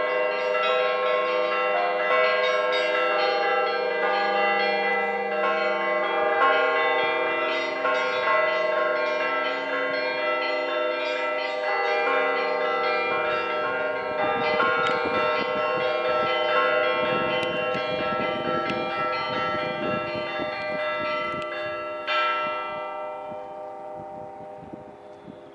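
Church bells ringing a peal, several bells of different pitch struck one after another in quick succession. The ringing stops about 22 seconds in, and the bells hum away into a fading decay.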